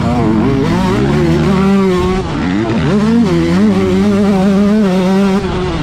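Yamaha YZ125 two-stroke motocross engine at full throttle: the pitch climbs, dips about two seconds in, climbs again and holds high, then drops off near the end.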